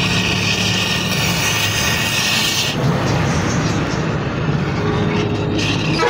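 Gas cutting torch hissing as its flame cuts at a truck's wheel hub nut; the loud high hiss drops away about three seconds in, leaving a quieter flame. A steady low mechanical hum runs underneath.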